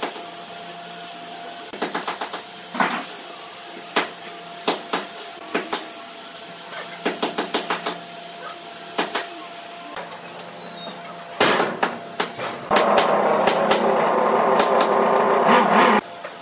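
Small pine wood blocks clacking and knocking as they are set down and pushed against each other on a paper-covered board, some knocks in quick runs of four or five. For the last few seconds a louder steady rushing noise takes over and cuts off suddenly near the end.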